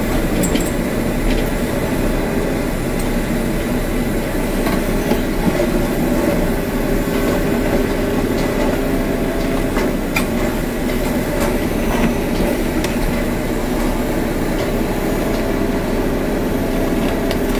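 Excavator ripper attachment tearing into bluestone rock: a steady heavy mechanical rumble and rattle, with scattered sharp cracks as the rock breaks.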